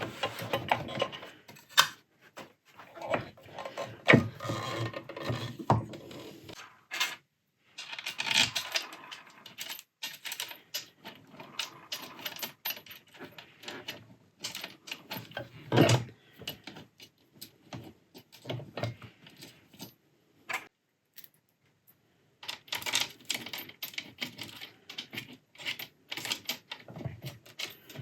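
Irregular clicks, taps and light rattles of small metal and plastic parts and tools being handled while an old overlocker is reassembled, with a few sharper knocks and short pauses.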